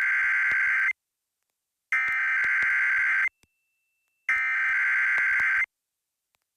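Emergency Alert System SAME data tones: three identical bursts of warbling two-tone digital data, each about a second and a half long and about a second apart. Bursts this long are the coded header that opens the next weekly test.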